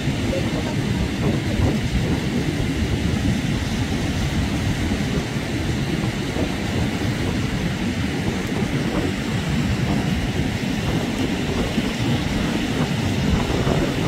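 Steady, uneven low rumble of wind and surf at the shoreline, with no bird calls standing out.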